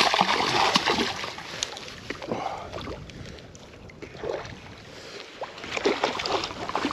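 Water splashing and sloshing, loudest in the first second and again about six seconds in, with small scattered clicks.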